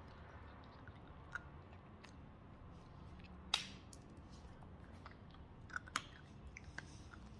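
Yorkie chewing a snack, with a few sharp crunching clicks; the loudest comes about three and a half seconds in.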